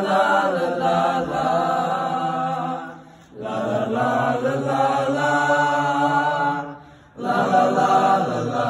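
Junior-high boys' vocal ensemble singing unaccompanied: three long sung phrases with a short breath gap between each.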